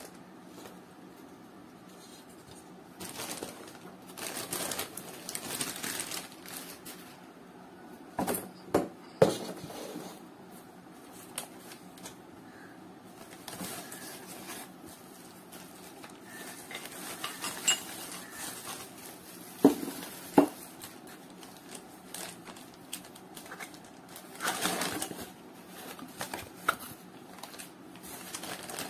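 Cookware being unpacked by hand: plastic wrapping and a foam sheet rustling, with two pairs of sharp knocks of the glass lid and pans against each other, about eight seconds in and again about twenty seconds in.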